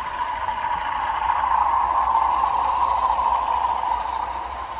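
00 gauge model diesel train running past on the layout's track: a steady whirring rumble of wheels and motor that grows louder as it nears, peaks about two seconds in, then fades as it moves away.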